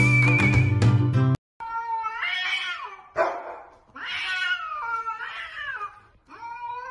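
Music for about the first second and a half, then, after a sudden cut, two cats yowling at each other in a standoff. There are two long wavering yowls and a shorter one near the end, with a sharp sound about three seconds in.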